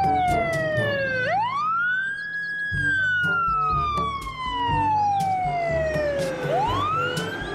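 Fire engine siren wailing on an emergency response. It rises quickly, falls slowly over about five seconds, then starts to rise again near the end.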